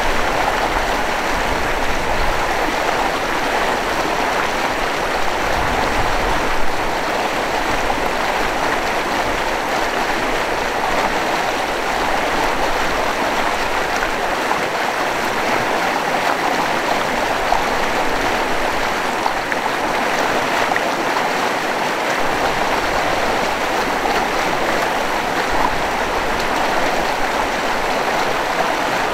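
Steady rushing of flowing water, a current running past rocks.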